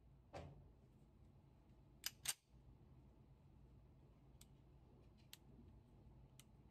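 Metallic clicks from a Browning Hi-Power 9mm pistol being handled as it is made ready to fire. There is a click just after the start, then a sharp pair of clicks about two seconds in, the loudest, then a few light ticks. No shots are fired.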